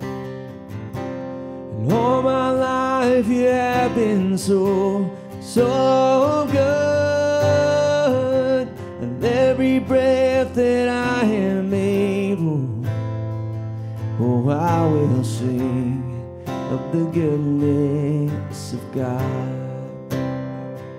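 A man sings a worship song to his own strummed acoustic guitar. The guitar plays alone at the start and near the end, and the singing breaks off briefly about halfway through.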